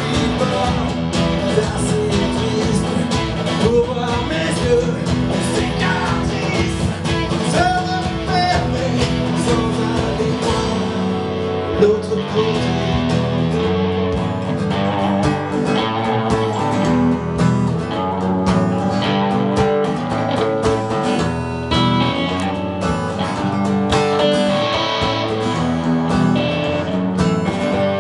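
Live guitar duo: a strummed acoustic guitar and an electric guitar playing a song together.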